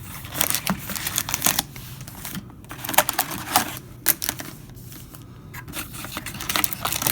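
Trading-card box packaging being opened and handled by hand: an irregular run of sharp crinkles, tears and clicks of cardboard and wrapper.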